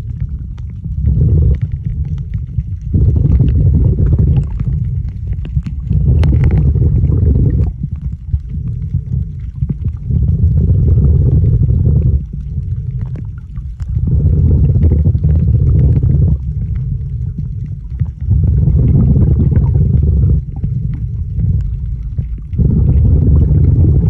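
Scuba diver breathing through a regulator underwater: exhaled bubbles rumble low and loud in bursts of about two seconds, roughly every three to four seconds, with quieter gaps between breaths.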